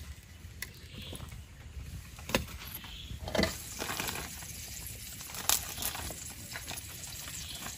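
Scattered light clicks and taps of a spatula and plastic plate as toast is handled on a camp table, over a steady low outdoor rumble.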